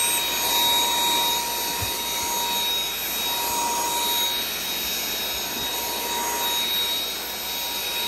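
Aspiron CA-007 cordless stick vacuum with a brushless motor, running steadily: a rush of air with a steady high motor whine.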